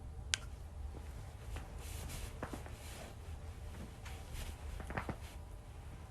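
A joint cracking: one sharp pop about a third of a second in, followed by a few softer pops and the rustle of body movement over a low steady hum.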